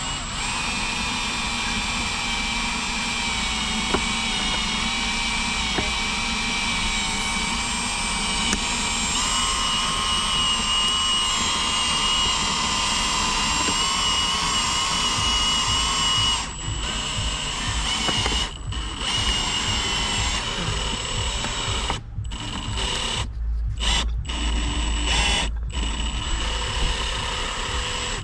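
A power tool running steadily with a high whine. Its pitch shifts about nine seconds in, and in the second half it stops and restarts several times with short breaks.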